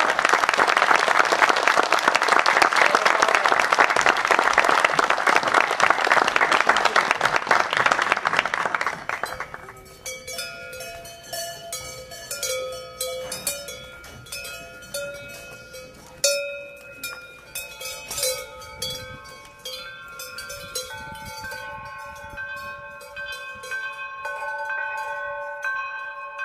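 Audience applauding for a performer's bow, which stops suddenly about nine seconds in; it gives way to gentle music of ringing bell-like chimes.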